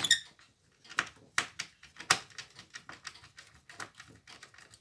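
A sharp click, then scattered lighter clicks and taps of a screwdriver, screws and fingers on the metal and plastic of a partly dismantled Shivaki VCR, as the screws holding the deck mechanism are taken out.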